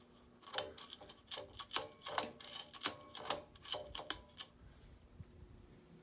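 Beaded metal pull chain on an Emerson Designer Series ceiling fan being handled at the speed switch: a quick string of about a dozen sharp clicks and rattles over about four seconds, with some light metallic ringing. The fan motor hums faintly and steadily underneath.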